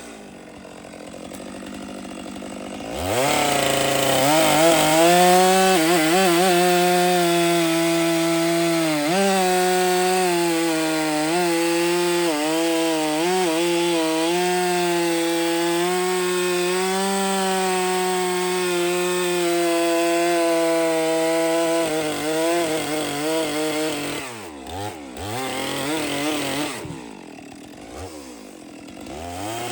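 Stihl two-stroke chainsaw idling, then revving up about three seconds in and cutting through a log, its pitch dipping and recovering as the chain takes load. Near the end it eases back to idle.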